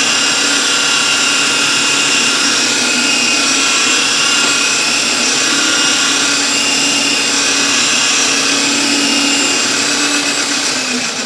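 Rotary polisher running steadily at medium speed with a foam pad on car paint, a constant motor whine; near the end its pitch starts to drop as it is switched off and spins down.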